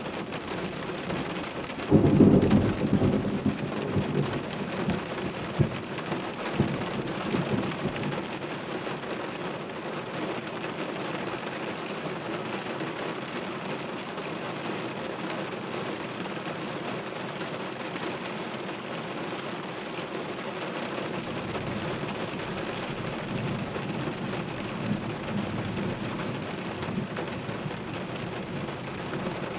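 Steady rain falling during a thunderstorm, with a sudden loud thunderclap about two seconds in that rumbles away over several seconds. A fainter low rumble of thunder comes near the end.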